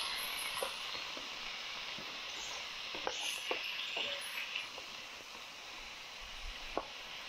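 Diced meat sizzling in a frying pan over a small fire, a steady hiss with scattered short knocks and scrapes as a spatula stirs it.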